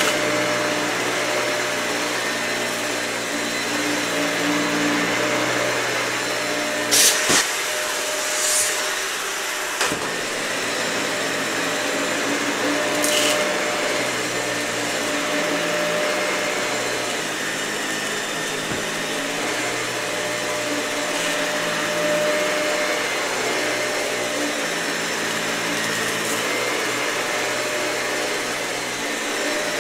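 Dyson vacuum cleaner running steadily over matted, dirty carpet, with a steady motor hum and a few short sharp clicks.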